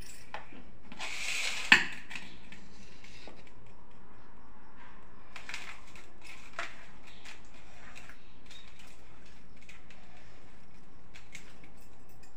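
Hands working and shaping rice dough for munda pitha, with light clicks and clinks of bangles on the wrists throughout. A brief rustle just after a second in ends in a single sharp click, the loudest sound.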